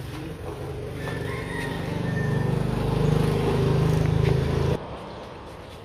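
A motor vehicle's engine running, a low steady hum that grows louder over a few seconds and then stops abruptly almost five seconds in.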